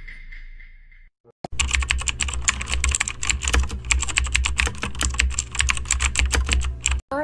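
Fast, continuous typing on a computer keyboard: a dense rattle of key clicks over a low hum. It starts about a second and a half in and stops abruptly near the end.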